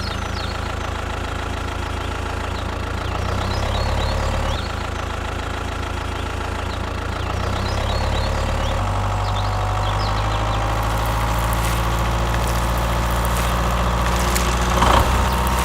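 An engine running steadily at idle, with a low even rumble that shifts slightly in pitch a few times.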